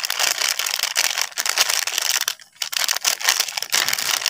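Plastic seasoning sachet crinkling as powdered seasoning is shaken out of it, a dense crackle that breaks off briefly about halfway.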